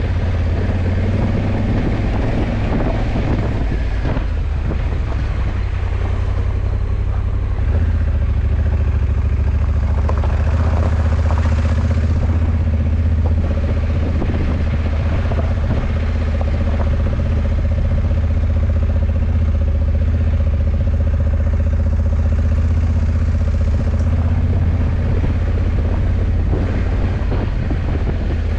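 Honda CRF1100 Africa Twin's 1084 cc parallel-twin engine running at a steady cruise on the road, a constant low hum with a slight change in the engine note about eight seconds in.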